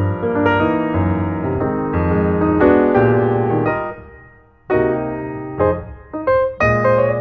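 Piano music: a melody over held chords. It fades out about four seconds in, and a new phrase of struck notes begins shortly after.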